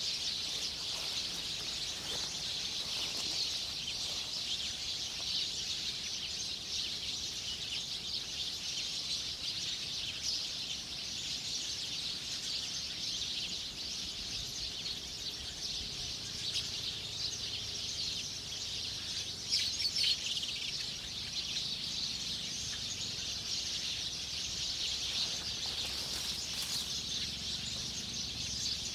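Outdoor nature ambience: a dense, steady, high-pitched chirping chorus with bird calls in it, and a brief louder burst about two-thirds of the way through.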